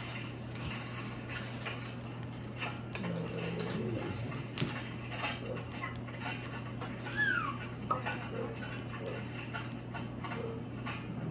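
Mahjong tiles clicking and clacking against each other and the table, in scattered sharp clicks over a steady low hum. There is a short falling squeak about seven seconds in.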